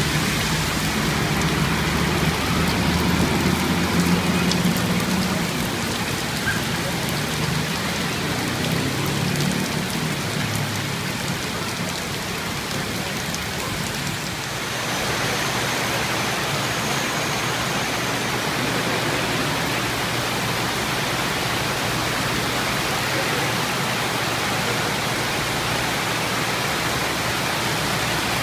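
Heavy rain pouring, a dense steady hiss. A low rumble underneath dies away in the first half, and about halfway through the hiss turns brighter and harsher.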